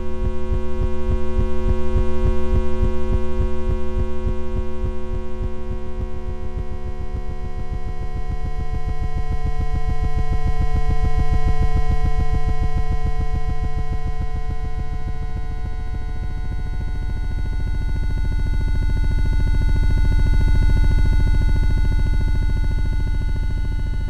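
Experimental electronic drone: a dense stack of steady synthesized tones, pitched from octave-scaled lifetimes of the charged muon and charged pion, over a fast, even pulsing. The whole slowly swells and fades, rising to a peak about every nine or ten seconds.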